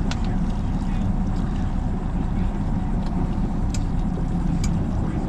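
Outboard engine of a Pursuit C 238 center-console boat running steadily at low cruising speed, with the rumble of hull, water and wind around it. A few faint ticks are heard over it.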